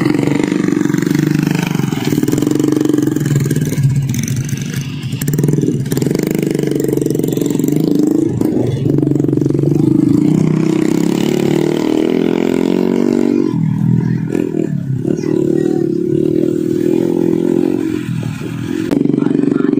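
Motorcycle engine running with its revs rising and falling, easing off briefly a few times.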